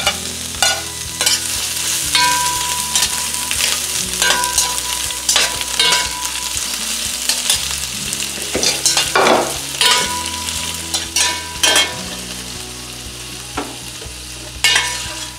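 Onion rings and red bell pepper strips sizzling as they sauté in hot oil in a stainless steel pan, with a metal spatula scraping and clinking against the pan as they are stirred. The sizzle eases off a little toward the end.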